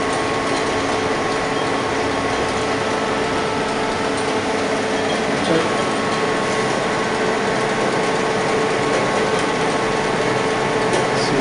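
Induction cap sealing machine with its conveyor running: a steady mechanical hum with several steady tones. A couple of light clicks near the end.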